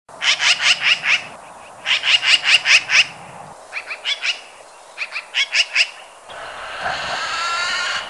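Eurasian magpie chattering: four quick rattling bursts of harsh notes, several notes each, separated by short pauses. From about six seconds in, a denser, steadier run of calls from other birds takes over.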